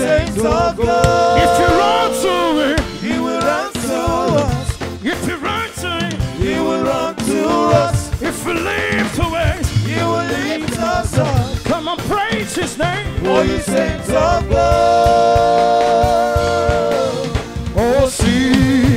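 Live gospel praise music: a lead voice singing over a full band with drums, holding long notes about a second in and again near the end.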